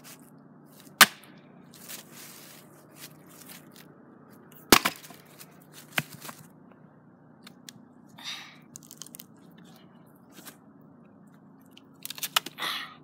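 Hatchet striking wood: a sharp crack about a second in and another nearly five seconds in, then a lighter knock. Near the end, quick crackles and rustling as loose bark is handled.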